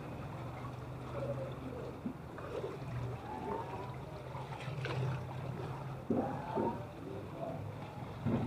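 Floodwater sloshing and splashing as someone wades through it, over a steady low engine hum.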